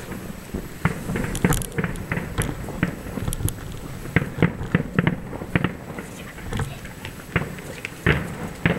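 Aerial fireworks shells bursting: a run of sharp bangs and pops at irregular intervals, several a second at times.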